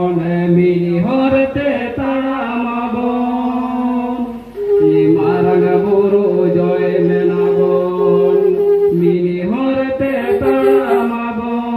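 A man's voice chanting through a microphone and loudspeaker in long held notes, stepping up and down in pitch every few seconds.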